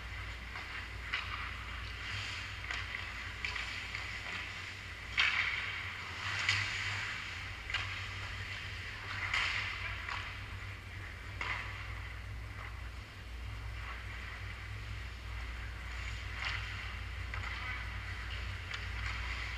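Ice hockey rink during play: skate blades scraping and carving on the ice, with a handful of louder scrapes a few seconds apart, over a steady low hum.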